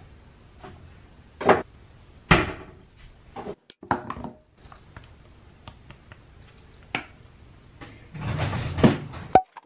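Kitchen handling clatter: several separate sharp knocks and taps of things being picked up and set down on a counter, the loudest about two seconds in, with a longer rustling, scraping stretch near the end.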